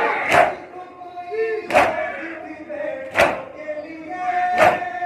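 A crowd of mourners doing matam, beating their chests in unison with one sharp collective slap about every second and a half, four strikes in all. Between the strikes, many voices chant loudly together.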